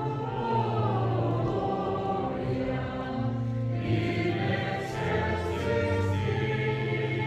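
Church choir singing, the voices held in long, steady notes.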